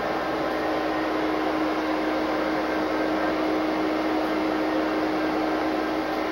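Steady mechanical drone with a constant hum inside the cab of a Conrail SD60M diesel-electric locomotive sitting at idle.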